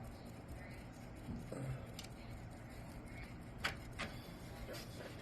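A few faint, sharp clicks and light knocks of a small screw and screwdriver as a 3D-printed plastic bracket is screwed onto a graphics card, over a low steady hum.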